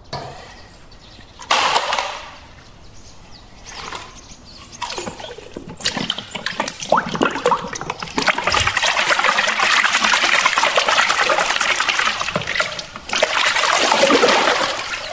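Water splashing in short bursts, then running in a steady rush for several seconds as toys are washed.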